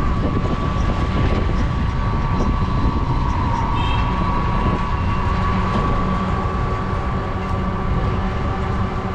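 Riding in a moving tuktuk (small three-wheeler): wind rumble on the microphone and road noise, with a steady high whine. A short high beep sounds about four seconds in.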